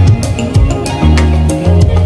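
Background music with a bass line and steady drum hits.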